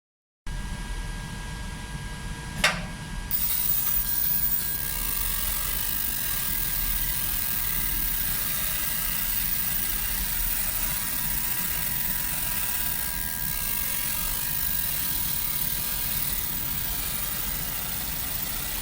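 Galvo laser engraving machine running while it engraves vinyl leather: a steady mechanical hiss and hum with two faint steady tones. There is a sharp click a little over two and a half seconds in, and then a brighter hiss comes in and holds.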